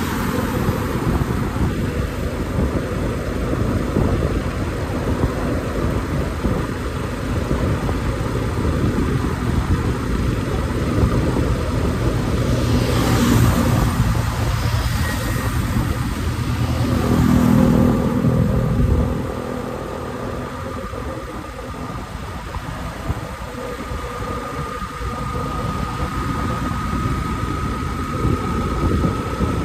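Yamaha motorcycle riding at about 45 km/h: wind rushing over the microphone, with the engine and road noise beneath. The noise swells louder for several seconds past the middle, then drops back.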